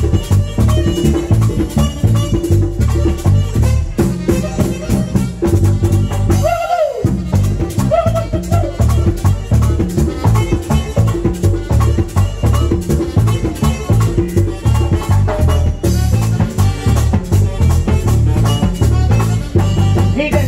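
Merengue típico band playing live, with no singing: accordion over a fast scraped güira rhythm and a steady tambora and bass beat. About six and a half seconds in, the bass and drums drop out for a moment under a rising then falling tone, then the beat comes back.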